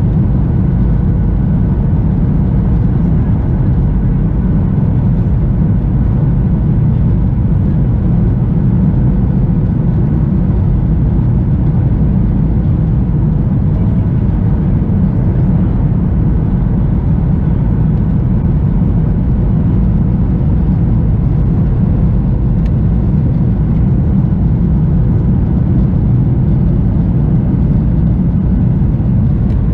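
Cabin noise of a Boeing 737-900ER airliner on final approach to landing. It is a steady, deep rumble of engine and airflow with faint steady engine tones above it, heard from inside the cabin at the window.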